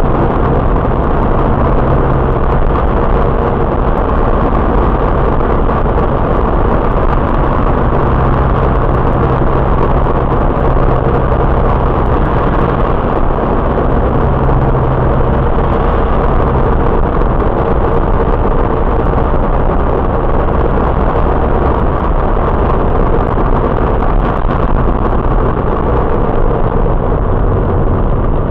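Fiat Siena's in-cabin engine and road noise while driving, picked up by the dashcam's built-in microphone: a steady drone with a low engine hum running under it.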